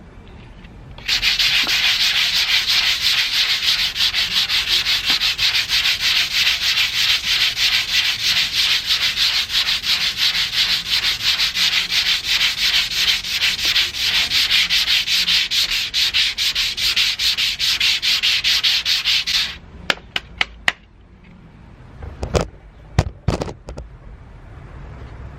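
Sandpaper rubbed in quick, even back-and-forth strokes over the painted steel body of a 1991 Toyota MR2, a loud rasping hiss. It starts about a second in and stops abruptly near the end, followed by a few sharp knocks.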